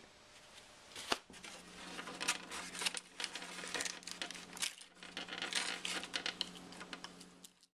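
Quiet rustling and clicking of a hand handling eggshells in an egg carton: a run of small crinkles and taps, with one sharper click about a second in.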